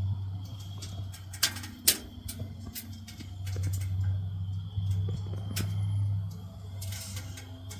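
A steady low hum that swells and fades, with a few sharp clicks, two of them louder, about one and a half and two seconds in.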